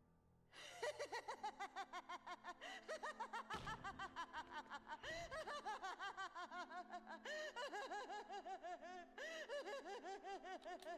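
A man's long, fast cackling laugh: rapid repeated "ha" syllables, each rising and falling in pitch, starting about half a second in and running on without a pause.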